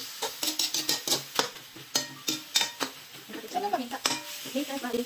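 A metal spatula scraping and clanking against an aluminium wok as raw chicken pieces are stir-fried, in quick irregular strokes, with sizzling underneath. A voice comes in over the last second and a half.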